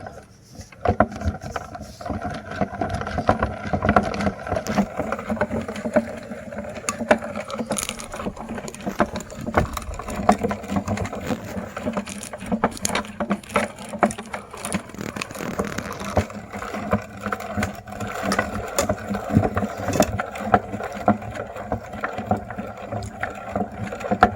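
Meat grinder grinding mini ice cream cones: a steady mechanical grinding with irregular crunches and cracks all through.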